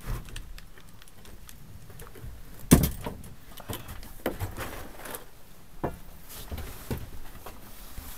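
Gear being handled in a plywood ice-fishing hut: scattered clicks and knocks, with one loud thump about three seconds in.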